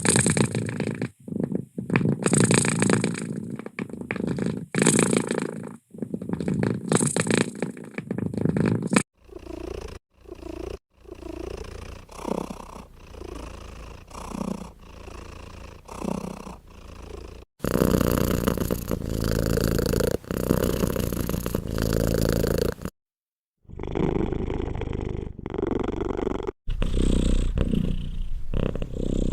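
Domestic cats purring, in several short clips cut one after another. The purr swells and fades in a steady rhythm of about once a second in the first clip.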